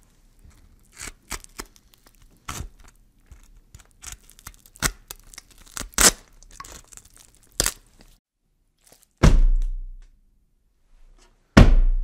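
Horror sound effects: irregular crunching and tearing cracks, like something being broken apart, for about eight seconds. Then two loud, heavy thuds about two and a half seconds apart, each dying away in a low rumble over about a second.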